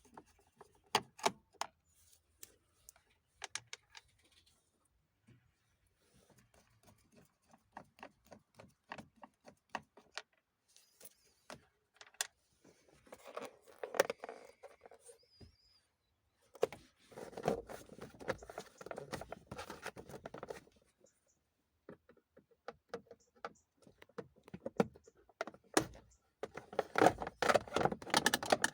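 Hand tools and small car parts being handled during dismantling: scattered clicks and rattles, with longer bouts of clattering about midway and near the end.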